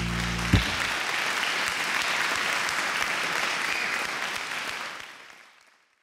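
Backing music ends on a final hit about half a second in, followed by a steady patter of applause that fades out near the end.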